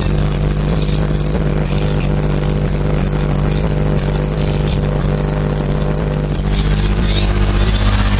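Loud bass-heavy music played through two Pioneer TS-W306C 12-inch subwoofers, each in a 1 cu. ft. enclosure, heard right at the cones. Deep sustained bass notes dominate, and the bass drops to a lower note about six seconds in.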